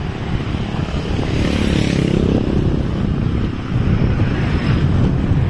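Wind buffeting the microphone in a steady low rumble. About a second in, a motor vehicle's engine passes on the lakeside road, its pitch rising and then falling away before the third second.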